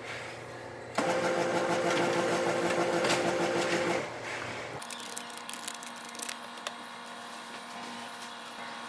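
A machine starts whirring suddenly about a second in, runs steadily and loudly for about three seconds, then fades out; a few faint clicks follow over a low hum.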